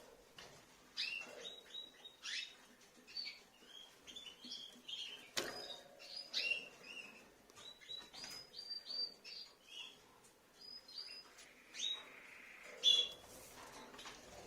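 Rosy-faced lovebirds chirping: short, high chirps in quick runs, with a sharp click about five seconds in.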